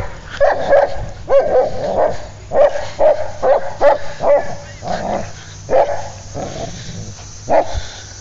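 Dog barking in a run of short, quick barks, about two a second at first and spacing out toward the end. It is frustrated at a bowling ball it cannot pick up in its mouth.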